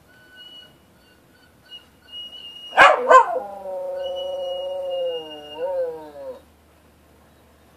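Pet dog howling along to music: after a few short thin high notes, the dog gives two sharp cries and then one long howl of about three seconds that wavers near the end, while a thin high note is held over it. The music is what sets the dog howling.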